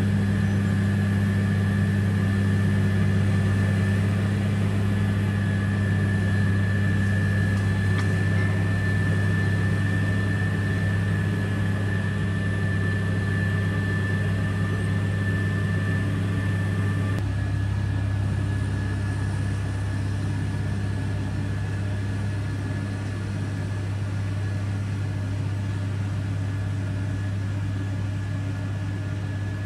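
Heavy diesel road-construction machinery running steadily: a deep, even engine hum with a thin high whine over it, becoming a little quieter about seventeen seconds in.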